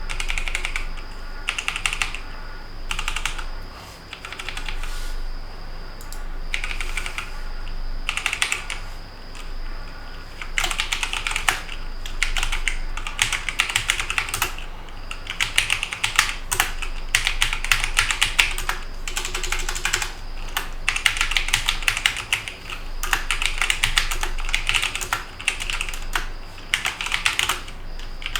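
Typing on a Logitech G512 Carbon mechanical keyboard with GX Brown tactile switches: rapid key clacks in short bursts with pauses, then nearly continuous fast typing from about ten seconds in.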